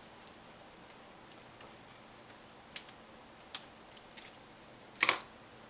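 Scattered light clicks and taps of a screwdriver and small parts against a laptop's plastic chassis during disassembly, with a louder double clack about five seconds in.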